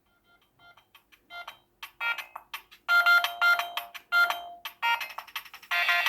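Mobile phone ringtone for an incoming call: a melody of short electronic notes that starts faintly and grows louder over the first three seconds, then plays on at full volume.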